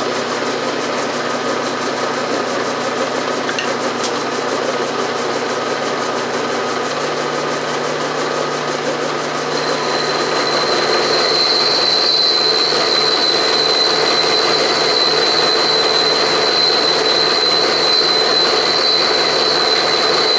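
Milling machine running and taking a 30-thousandths conventional-milling cut in steel with an end mill. It is a steady mechanical running sound. About ten seconds in, a steady high whine sets in and holds, and the sound gets a little louder.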